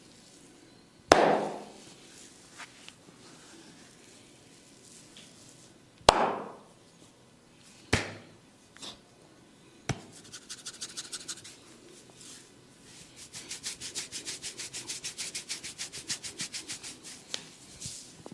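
A barber's hands massaging a head: three loud, sharp smacks, about a second in, about six seconds in and about eight seconds in. From about ten seconds in come bursts of fast, even rubbing and patting on the hair, roughly seven strokes a second.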